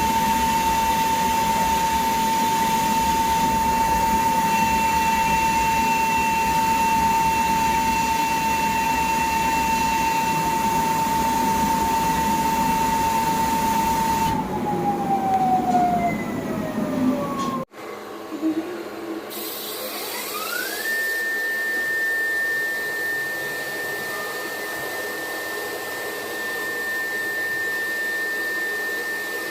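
High-speed CNC spindle whining at a steady pitch, then winding down with a falling pitch about fourteen seconds in. After a sudden break it spins up again with a rising whine and holds a steady, higher pitch.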